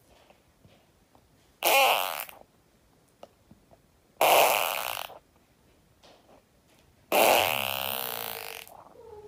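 Three fart noises, one after another a couple of seconds apart. The last is the longest, at about a second and a half.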